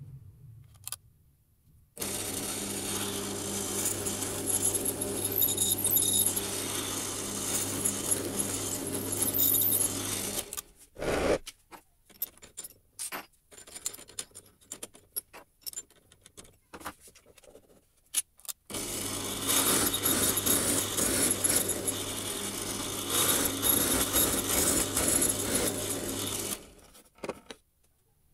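Bench drill press running and boring holes with a twist bit into a wooden board, in two long runs with a steady motor hum under the cutting noise. Between the runs, short metallic clicks and rattles as the bit is handled.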